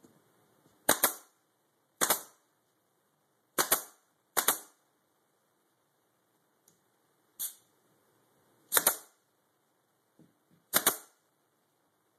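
Pin nailer firing pins into small wood trim: seven sharp shots a second or more apart, one of them weaker.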